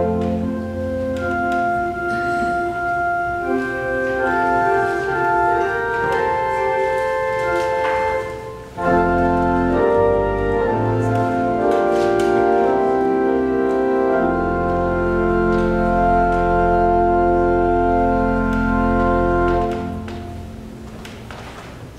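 Organ playing slow, sustained chords, with deep bass notes held from about fourteen seconds in. The sound dips briefly near eight seconds, and the last chord is released about twenty seconds in.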